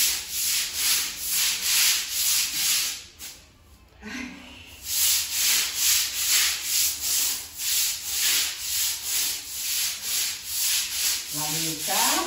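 Bristle broom scrubbing a wet ceramic-tile floor in rhythmic back-and-forth strokes, about two a second, with a pause of a second or so about three seconds in.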